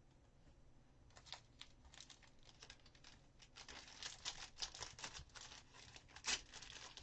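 Trading cards being handled: a run of small crackles and rustles that starts about a second in and grows busier, with one sharper crackle near the end.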